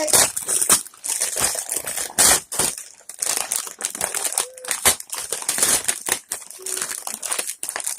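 Packaging crinkling and rustling in irregular bursts as items are handled and unpacked.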